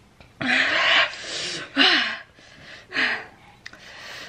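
A person blowing out hard, breathy exhales three times, each about half a second long, with a voiced groan under them, as if panting against the burn of very spicy food.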